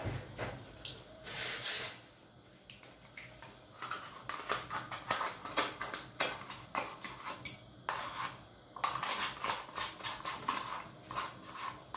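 Plain yogurt being scraped out of its plastic pot into a glass mixing bowl: a short rustle about a second and a half in, then a run of quick taps and scrapes of the utensil against the pot and bowl.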